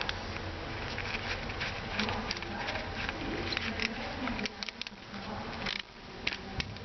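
Scattered light clicks and taps of small carburetor parts being handled, over a steady low buzzing hum.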